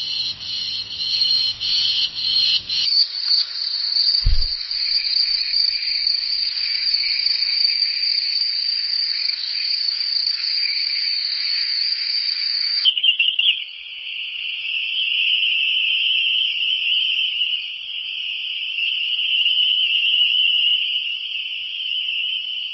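A steady, high-pitched chorus of night insects such as crickets chirring, with its pitch and texture changing abruptly twice as one recording gives way to the next. A single brief low thump sounds about four seconds in.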